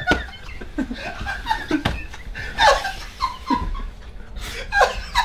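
People laughing in short, scattered bursts.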